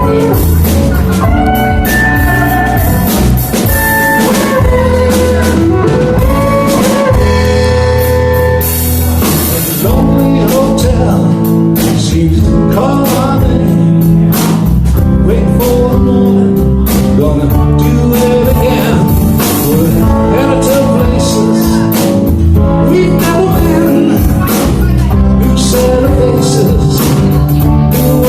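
Live band playing a blues number, with bending lead lines in the mid range over bass and drum kit.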